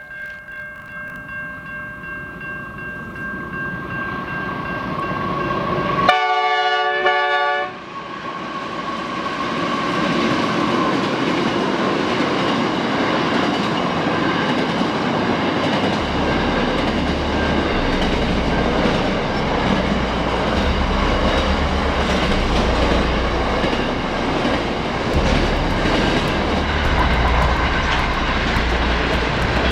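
Diesel freight train approaching and sounding its horn in one loud blast of about a second and a half, about six seconds in. It then rolls past with a steady heavy rumble of locomotive and wagons and a clickety-clack of wheels over the rail joints.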